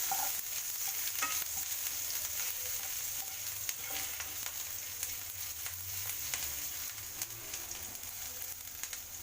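Hot refined oil sizzling in a pan as chopped green chilli, grated ginger and asafoetida fry in it, a steady hiss with scattered light clicks.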